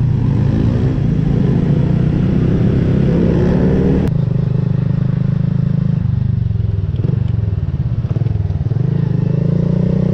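Small single-cylinder four-stroke underbone motorcycle engine (Honda Wave RSX 110) heard while riding. It revs up for about four seconds, drops suddenly, eases off, then rises again near the end.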